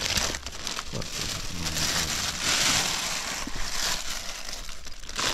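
Continuous rustling and crinkling, as of material being handled, with a faint voice in the background.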